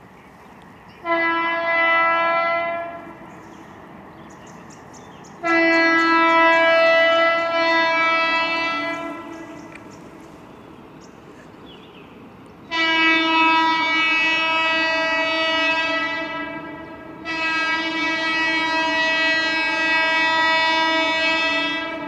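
Indian train's horn sounding four long steady blasts. The first is short, the next runs about four seconds, and the last two follow almost back to back.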